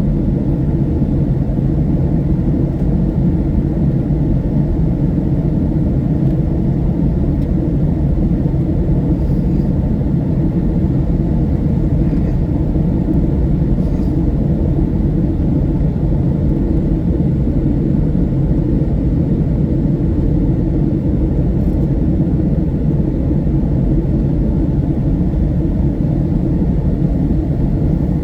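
Boeing 757-200 airliner, a steady low rumble of engines and rushing air that holds even, with no rise or fall.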